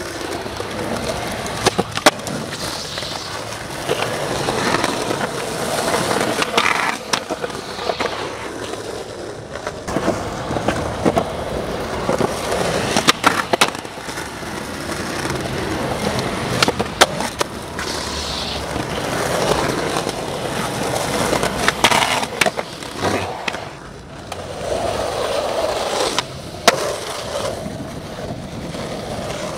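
Skateboard wheels rolling over concrete and asphalt, the rumble swelling and fading as the riders push and cruise, with several sharp clacks of the wooden deck popping and landing.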